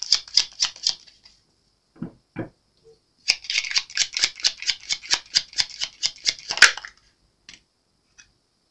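Tarot deck shuffled by hand: quick card slaps about five a second, in two runs. Between the runs come two soft thumps, and a few faint ticks follow near the end.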